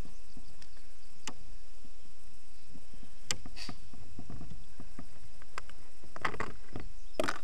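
Scattered clicks, knocks and rustles of fishing gear being handled in a kayak, with a few louder knocks against the hull near the end.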